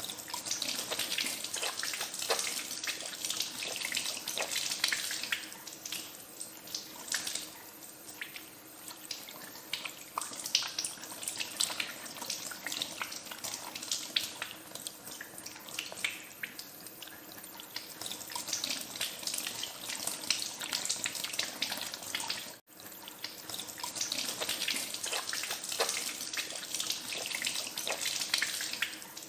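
Tap water running into a sink as hands are washed under it, with irregular splashes. The sound is fuller at the start and end and thinner through the middle, and it cuts out for an instant about 23 seconds in.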